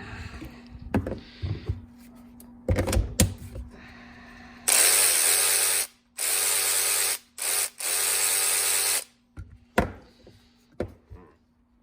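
Snap-on 14.4-volt cordless power tool triggered in three runs of about a second each, plus one short blip: a steady motor whir, a little noisy but running properly. A few handling knocks come before it.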